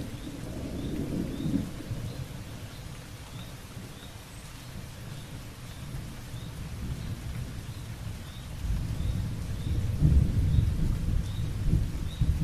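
Low rumbling over a steady hiss, swelling briefly near the start and growing loudest about nine seconds in, with faint high chirps repeating roughly every half second.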